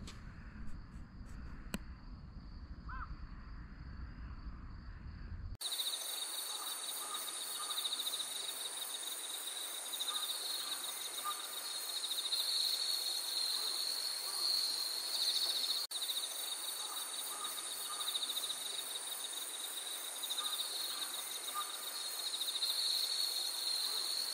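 Chorus of insects trilling, a steady high-pitched pulsing that cuts in abruptly about five seconds in, with faint short chirps mixed through it. Before it, quieter outdoor ambience with a low rumble.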